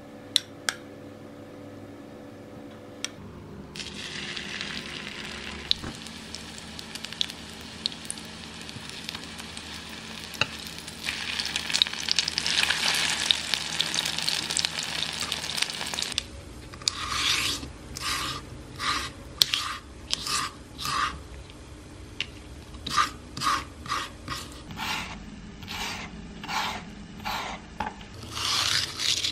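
Thin egg-coated beef slices frying in an oiled pan. At first there is almost no sizzle, because the pan is not yet hot. A few seconds in the sizzle starts, and it grows louder towards the middle. Then a scallion shredder is drawn again and again through a green onion on a wooden cutting board: a series of short strokes, roughly one or two a second.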